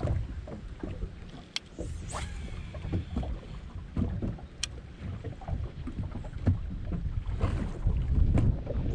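Choppy lake water lapping and slapping against a bass boat's hull in irregular low thuds, with wind on the microphone and a few sharp clicks.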